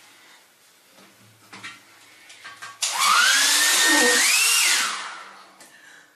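Faint shower spray hiss, then about three seconds in a woman's sudden loud, harsh scream lasting about two seconds, rising and then falling in pitch, as a burst of baby powder from the showerhead hits her face.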